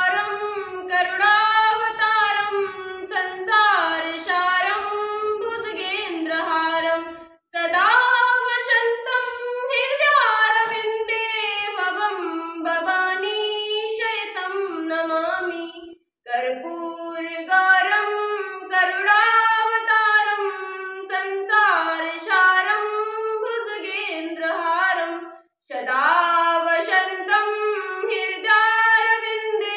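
A girl singing a devotional vandana to Shiva without accompaniment, in long melodic phrases with brief pauses about every eight to nine seconds.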